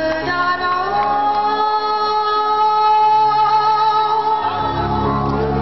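Female vocalist singing live with a rock band, holding one long note. The bass drops out about two seconds in and comes back near the end.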